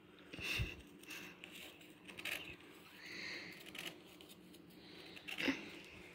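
Scissors snipping a short starter cut into Iwan Simonis pool table cloth at the 6-inch mark, before the rail strip is ripped by hand: a few faint separate snips, the sharpest about five and a half seconds in.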